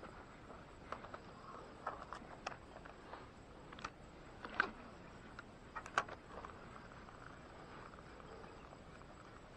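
Spinning fishing reel being handled: a scattered run of short sharp clicks and knocks, the two loudest about four and a half and six seconds in, over a faint steady background hum.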